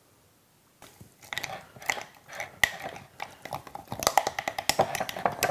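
Wet corn dog batter being stirred in a glass mason jar: a utensil clicks and scrapes irregularly against the glass, starting about a second in and getting louder toward the end.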